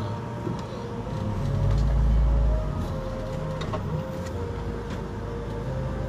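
Car cabin engine and road noise while driving slowly, with music playing quietly inside the car; a heavier low rumble swells about two seconds in.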